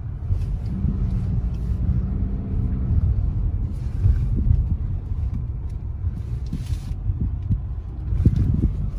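Car engine and tyre noise heard from inside the cabin while driving: a steady low rumble, with a faint hum over the first few seconds.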